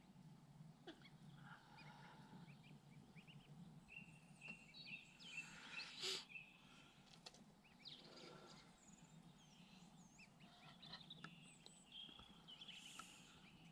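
Faint, scattered peeping and calling of a flock of goslings, geese and ducks feeding on a lawn, over a low steady hum, with one brief louder noise about six seconds in.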